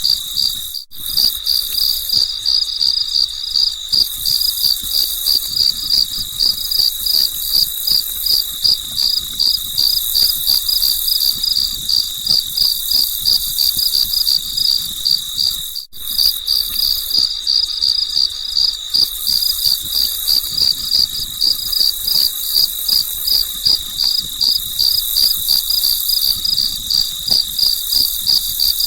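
Crickets chirping in a fast, even pulse, with a brief break about a second in and again about halfway through.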